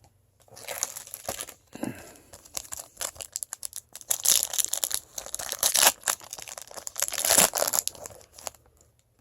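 A trading-card pack's wrapper being torn open and crinkled in the hands, in irregular crackly bursts that die away near the end.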